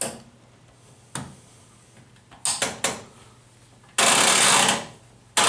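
Plastic clicks and knocks as a tumble dryer's inner control knob is handled and pushed onto its shaft, followed by two loud bursts of noise near the end, the first lasting most of a second.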